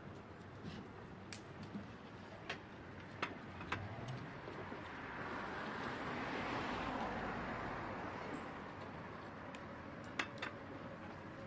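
Street traffic noise that swells and fades as a vehicle passes, loudest about seven seconds in. Over it, scattered sharp clicks and lip smacks of someone eating steamed buns, several in the first four seconds and two near the end.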